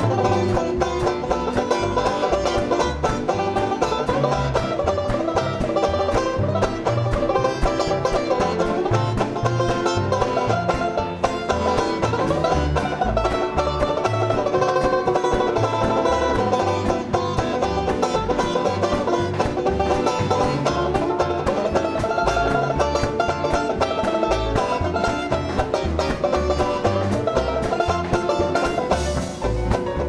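Small vintage-style dance orchestra playing a number live, strummed banjo chords prominent over piano, string bass and drums with a steady beat.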